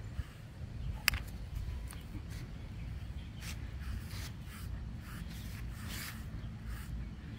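Orange deshedding tool raked through a dog's short coat in short scratchy strokes, about two a second, over a steady low rumble. A sharp click about a second in.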